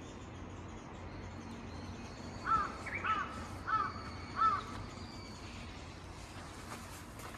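A crow cawing four times in a quick, evenly spaced series about halfway through, over faint steady outdoor background noise.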